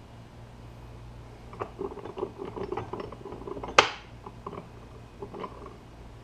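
Small clicks and rattles of objects being handled, then one sharp clank about four seconds in, over a steady low hum.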